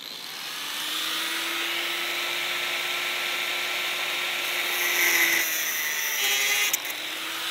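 Angle grinder with a cut-off disc cutting through 316 stainless steel rigging wire: a steady motor whine under a hissing grind. The grind gets louder and harsher about five seconds in.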